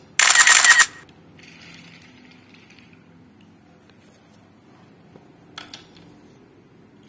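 Small plastic toy train handled by hand: a loud, brief rattling whirr lasting just over half a second near the start, then soft plastic rubbing and a couple of light clicks about five and a half seconds in.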